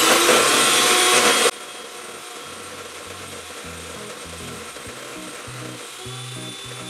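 Electric hand mixer running at full speed, beating egg whites into meringue, for about a second and a half before it cuts off suddenly. Quiet background music with a low bass line follows.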